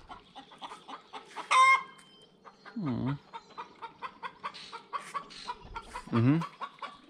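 Chickens clucking, with a high squawk about a second and a half in. Close by, a man chews a mouthful of tortilla and hums a low 'mmm' twice.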